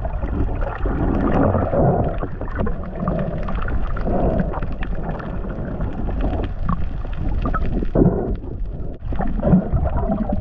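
Muffled underwater noise heard through a camera's waterproof housing: a steady low rush and rumble of moving water as the diver swims, with scattered clicks and crackles.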